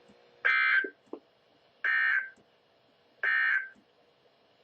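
Emergency Alert System end-of-message signal on NOAA Weather Radio: three short bursts of buzzy digital data tones, about a second and a half apart, marking the end of the weekly test broadcast.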